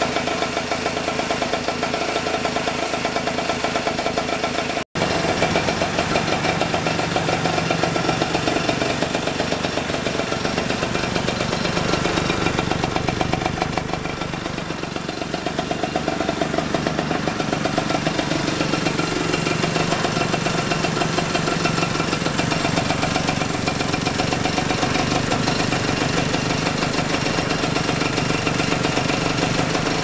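Single-cylinder air-cooled engine from a 1942 aircraft auxiliary power unit, mounted in a custom bicycle, idling steadily with a rapid, even firing beat. Its spark plug has been opened up to get a better spark.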